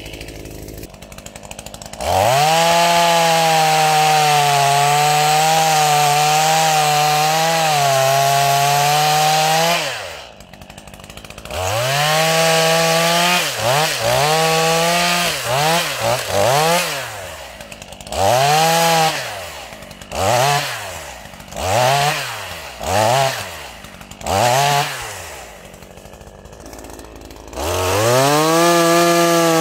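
Stihl MS 212 two-stroke chainsaw idling, then opened to full throttle and held for about eight seconds before dropping back to idle. It is then revved in a string of short blips, idles again, and goes back to full throttle near the end.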